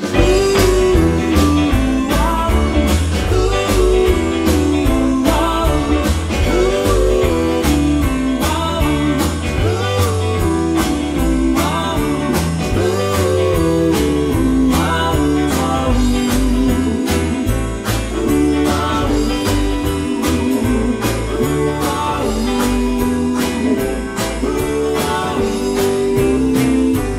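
Upbeat music with guitar and a steady beat.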